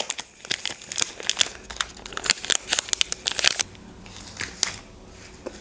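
Plastic chocolate-bar wrapper crinkling as it is torn open and handled close to the microphone, a dense run of crackles that dies away about three and a half seconds in. After that only a few faint crackles.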